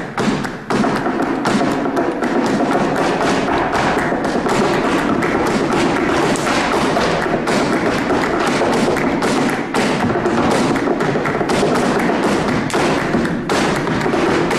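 Flamenco zapateado: rapid heel and toe strikes on a stage floor in a dense, unbroken run of taps and thumps.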